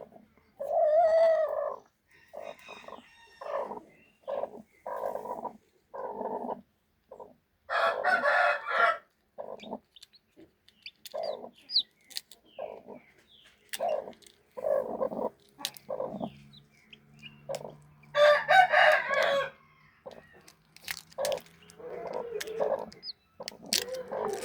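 Chickens clucking in short repeated calls, with a rooster crowing loudly three times: near the start, about a third of the way in, and about three-quarters of the way through.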